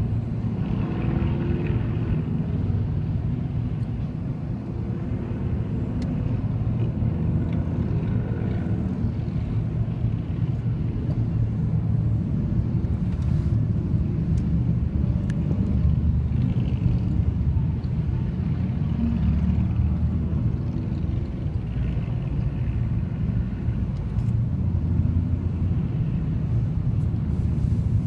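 Cruiser and touring motorcycles riding past in a steady stream, their engines giving a continuous low rumble that swells a little as each bike goes by.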